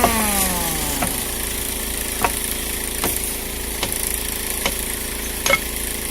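A small engine's whine drops from high revs to idle over about a second, then it idles steadily, with about five sharp knocks spread through the rest.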